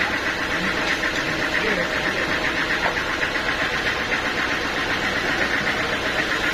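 Sawmill machinery running steadily with a fast pulsing drone, with faint voices under it.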